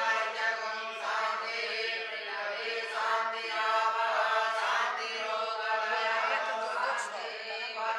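Young Vedic students chanting Sanskrit mantras together, one continuous recitation.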